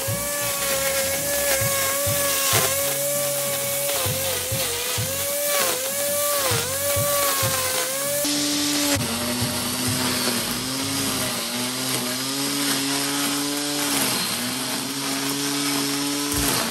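Electric angle grinder spinning a nylon trimmer-line head, whining at high speed as it cuts grass. Its pitch sags and recovers over and over as the line bites into thick clumps. About eight seconds in, the whine suddenly drops to a lower pitch.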